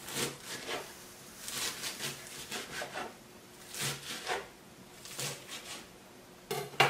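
Kitchen knife chopping lettuce on a plastic cutting board: irregular crisp cuts with the blade tapping the board, a few per second, and a louder sharp knock near the end.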